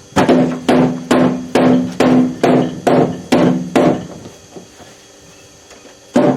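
Hammer blows struck in a steady run of about two a second, nine in a row, each with a short ringing tone; after a pause of about two seconds, one more blow near the end.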